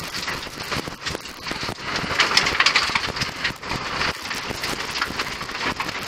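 1.0-litre Nissan Micra rally car driven hard on loose gravel, heard from inside the stripped cabin: engine and tyre noise with a dense clatter of stones thrown against the underbody and wheel arches. It grows louder about two seconds in.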